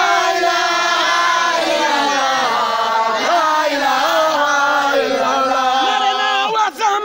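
Several voices chanting together in long, held lines that glide up and down in pitch, steady and loud.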